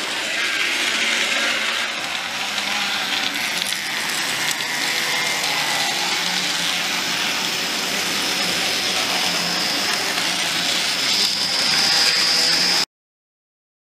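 Small electric motors of model Manx Electric Railway tramcars whirring as they run on the layout's track. A high whine grows louder near the end as a car comes close, then the sound cuts off suddenly.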